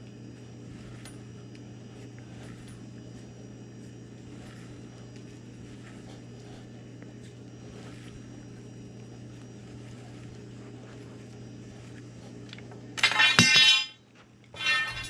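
Tubing cutter being turned around metal conduit, with faint ticks over a steady low hum. Near the end come two short, loud, ringing metallic squeals about a second and a half apart as the cut goes through.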